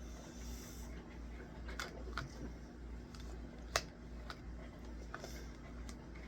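A few light clicks and taps, the sharpest a little past the middle, over a low steady hum.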